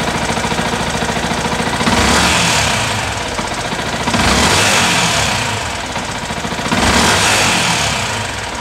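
2014 Yamaha WR125X's 125 cc single-cylinder four-stroke engine idling, then revved three times: about two seconds in, about four seconds in and near seven seconds in. Each rev rises quickly and falls back toward idle.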